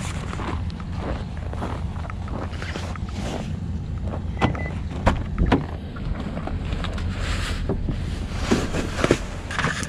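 Steady low road and tyre rumble inside the cabin of a Hyundai Ioniq Electric at highway speed. There is no engine sound, only tyre and wind noise. A few sharp knocks come through about halfway in and again near the end.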